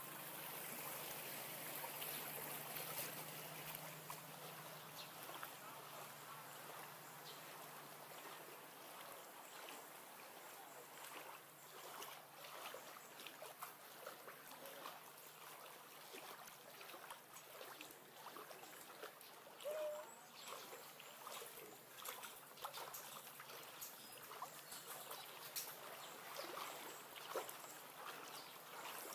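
Floodwater sloshing and trickling faintly, with many small irregular splashes.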